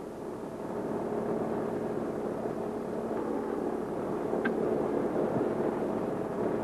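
Steady drone of the B-17's Wright R-1820 Cyclone radial engines running on the ground, heard inside the cockpit, growing slightly louder, with a brief high chirp about four and a half seconds in.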